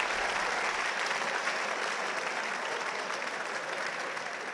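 Large audience applauding, the clapping slowly dying away.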